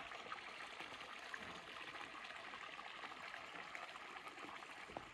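Faint, steady running water of a small spring-fed stream.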